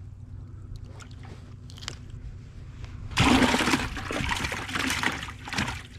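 A bluegill splashing and thrashing in a bucket of water, starting about three seconds in and lasting a couple of seconds.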